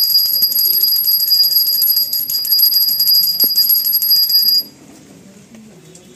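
Puja hand bell rung rapidly and continuously, a high ringing that cuts off abruptly about four and a half seconds in.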